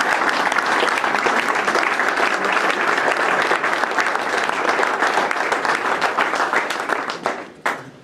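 Audience applauding: dense, steady clapping that thins out and dies away near the end, with a few last separate claps.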